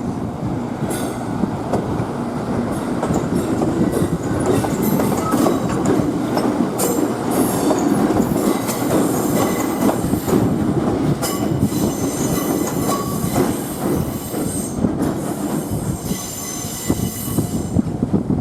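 Electric train rolling past, a steady heavy rumble with steel wheels squealing and clattering over the track.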